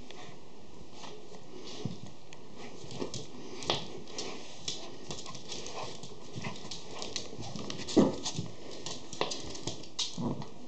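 A schipperke and a pinscher tussling over a plush toy on a wooden floor: irregular clicks and taps of claws and paws, with one louder knock about eight seconds in.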